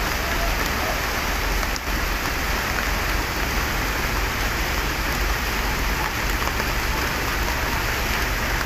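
Heavy rain falling steadily, a dense, even hiss with a low rumble underneath.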